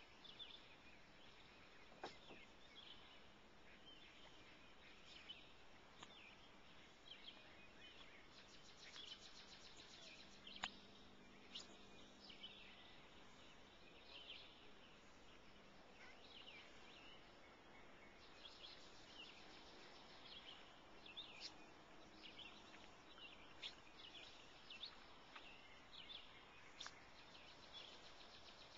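Near silence of open water and woods, with scattered faint bird chirps and calls, a few rapid trills, and occasional faint clicks, the sharpest about ten seconds in.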